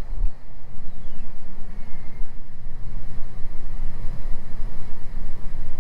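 Beechcraft G58 Baron's twin six-cylinder Continental IO-550 engines and propellers running in cruise descent, a steady low drone.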